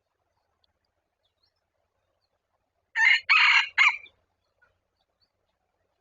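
Junglefowl rooster crowing once: a short crow in three quick parts about three seconds in.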